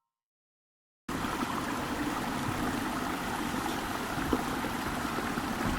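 Waterfall splashing down, a steady rush of falling water that starts abruptly about a second in after a short silence.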